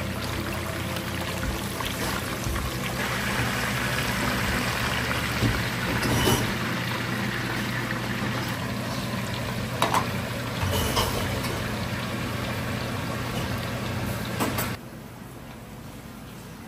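Raw chicken pieces sizzling in hot oil in a pot, a steady loud hiss with a few sharp clicks; the sizzle cuts off suddenly near the end.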